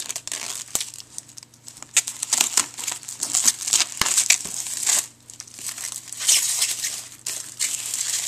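Clear plastic shrink-wrap being peeled and torn off a product box, crinkling and crackling in quick irregular bursts, with a short lull about five seconds in.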